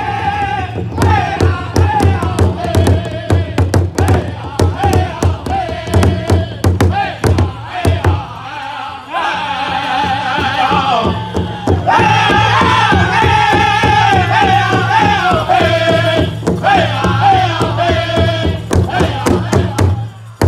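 A powwow drum group singing northern-style around a large hide drum: several men beat the drum together in a steady, fast rhythm while singing in high, wavering voices. The drumbeat drops out briefly about eight seconds in, then resumes under the song.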